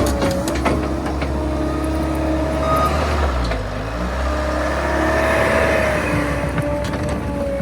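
Skid steer engine running steadily, its pitch wavering slightly, with a few short clicks and knocks.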